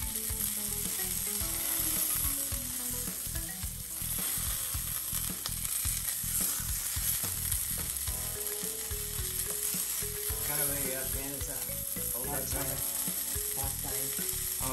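London broil searing in hot oil and butter in a cast iron skillet: a steady sizzle and fry, with the meat held on its edge by tongs.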